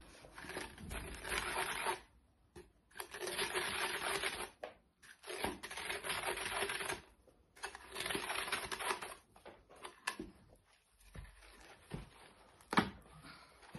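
Worn fabric covering being ripped off a cat scratching post in four rasping pulls of a second or two each, followed by quieter handling with a few sharp knocks near the end.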